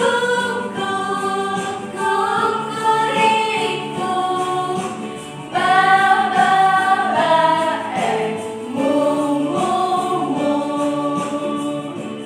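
A group of women singing a children's action song together in unison, accompanied by an electronic keyboard.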